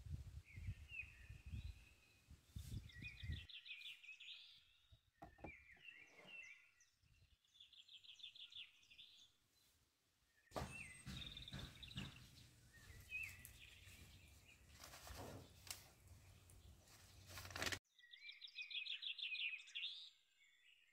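Birds chirping and singing in short, rapid, repeated trills, over a faint low rumble and a few soft clicks.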